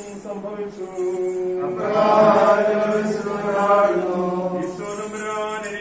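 Chanted devotional singing: a slow melody on long held notes over a steady low drone.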